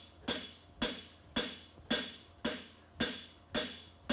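Hand hammer striking a red-hot horseshoe branch on the anvil in a steady rhythm of about two blows a second, each blow ringing briefly.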